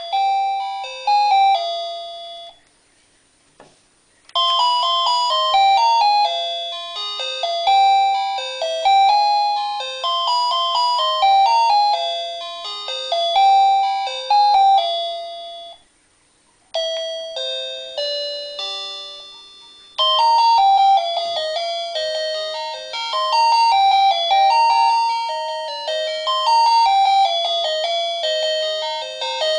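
Wireless doorbell chime playing its built-in electronic melodies, one tune after another, in quick runs of plain beeping notes. There are brief silent pauses about three seconds in and about sixteen seconds in, and a new tune cuts in about twenty seconds in.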